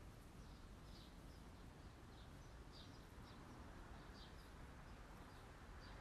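Near silence: a steady low background hiss with faint, short high chirps scattered through it, a couple a second.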